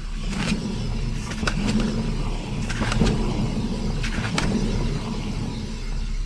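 Worn front wheel hub bearing of a 1995 Chevrolet Blazer rumbling as the raised wheel is spun by hand, a steady low drone: the hum of failed hub bearings. A few short sharp sounds come over it.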